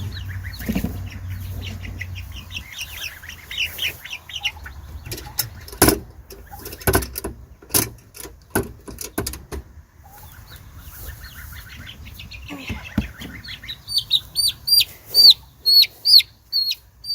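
Young chicks cheeping in rapid high peeps, with several sharp knocks in the middle. Louder, higher chirps come in a quick series near the end.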